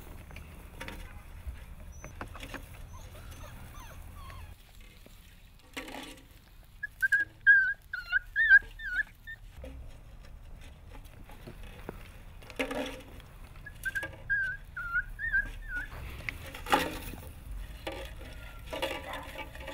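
Wheaten terrier puppies whimpering: two runs of short, wavering high squeals, the first about seven seconds in and the second about fourteen seconds in, with a few soft knocks between them.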